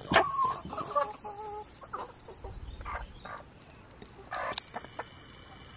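Chickens clucking, with several short calls scattered through and the loudest one about four and a half seconds in.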